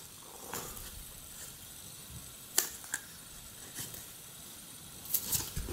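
Hands handling a wallet-style flip phone case: faint rubbing and a few soft clicks, the clearest about two and a half seconds in and a small cluster near the end.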